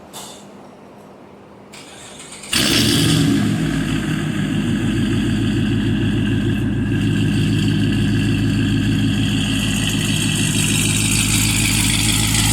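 A loud Hemi V8 engine starts up suddenly about two and a half seconds in and keeps running steadily at idle.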